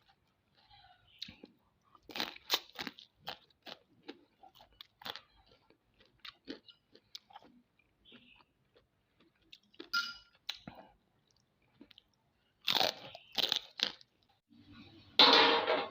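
Mud crab being eaten: irregular sharp cracks of the shell being bitten and broken, mixed with chewing and crunching. The cracks come in clusters, and the loudest and longest crunch comes near the end.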